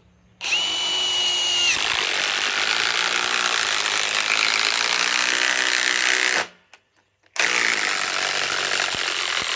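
Ryobi PSBIW25 cordless compact impact wrench hammering a large fastener into wood in two runs: about six seconds, a pause of about a second, then about two and a half seconds more. The first run opens with a steady high motor whine before the hammering takes over.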